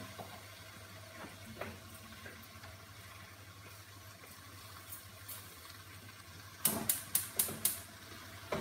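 Faint steady hiss of a tadka cooking in a steel pot on a gas stove. Near the end, a quick run of about five sharp metal clinks as a spoon strikes the pot while stirring.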